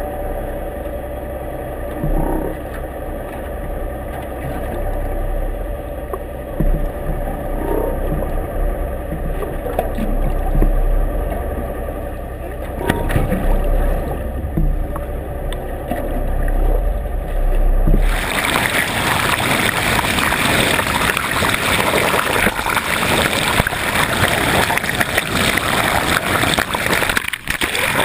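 Underwater recording under a boat: a low steady hum from the boat's engine carried through the water, with a few faint short rising sounds. About eighteen seconds in it changes abruptly to a loud even rushing-water noise.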